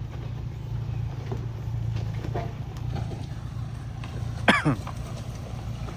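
A truck engine running with a steady low rumble. About four and a half seconds in comes one short, loud vocal sound that falls in pitch, like a cough.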